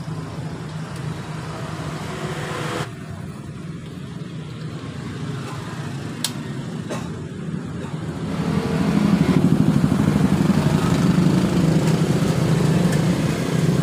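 An engine running steadily, getting louder about eight and a half seconds in, with two sharp clicks near the middle.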